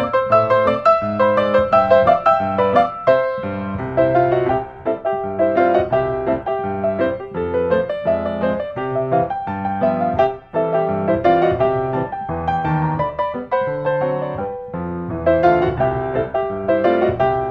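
Background piano music, a steady melody with chords.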